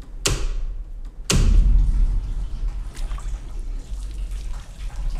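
Horror-trailer sound design: two sharp hits about a second apart, then a low, steady rumbling drone.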